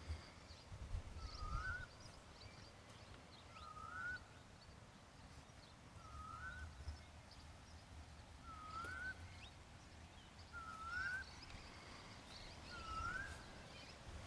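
A bird repeating a short, whistled note that dips and then rises, about once every two seconds, over a faint low rumble.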